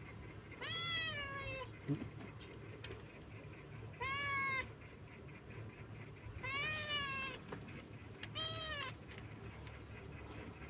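Kitten meowing four times, each a high call that rises and falls, spaced a few seconds apart.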